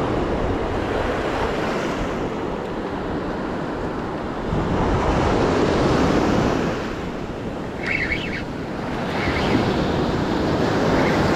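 Ocean surf washing in around a wader's legs, with wind buffeting the microphone. The wash swells louder about halfway through and again near the end.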